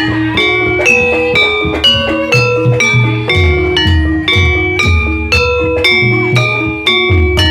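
Live ebeg (kuda lumping) dance accompaniment: struck pitched percussion plays a quick repeating melody of ringing notes over regular low drum beats.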